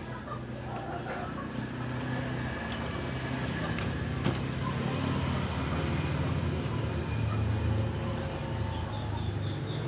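A motor running with a steady low hum that slowly grows louder, with a few light clicks, the sharpest about four seconds in.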